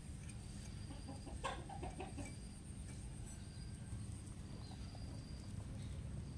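Quiet outdoor ambience: a steady low rumble with a faint high steady tone, and a brief cluster of short, small sounds about one and a half seconds in.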